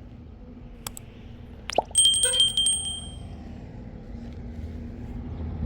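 A couple of sharp clicks, then about two seconds in a bright, metallic bell-like ring that fades away over about a second and a half. A steady low rumble runs underneath.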